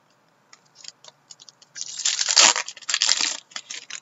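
Trading cards and their packaging being handled. A few light clicks and rustles come first, then two loud spells of crinkling and tearing about two and three seconds in.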